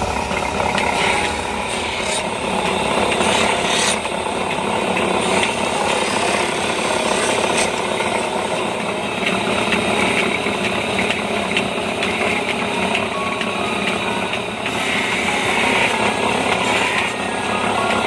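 A motor-driven grinding wheel running with a balisong's handle pressed against it, giving a steady rubbing, grinding noise as the handle is shaped.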